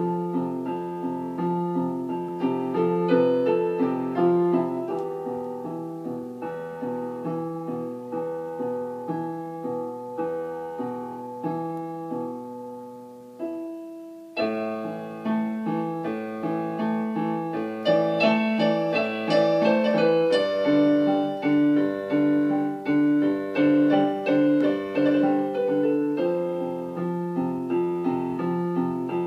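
Piano playing, a melody over repeated chords. The music thins and nearly stops about halfway through, then picks up again and grows louder.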